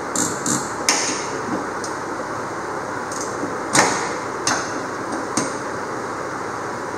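Irregular sharp metallic clinks and knocks, about nine over several seconds with the loudest a little before the middle, as a hand tool works on bolts at the aluminum jon boat's transom, over a steady background hiss.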